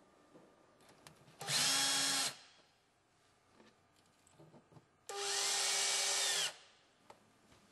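A 12-volt cordless drill-driver drives screws through a cabinet lift mechanism's mounting holes, in two short runs. Each time the motor whine spins up, holds and winds down: the first run lasts under a second, about a second and a half in, and the longer second run comes about five seconds in.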